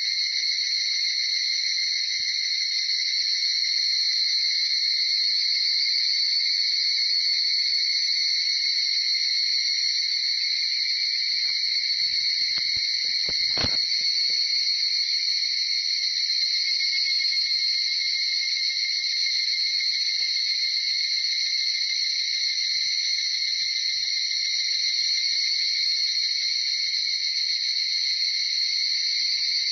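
Dawn chorus of many higurashi cicadas (Tanna japonensis), their high calls overlapping into one steady, unbroken ringing.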